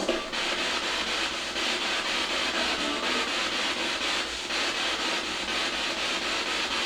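Spirit box scanning rapidly through radio stations: a steady hiss of static, chopped finely by the sweep, with brief snatches of broadcast sound.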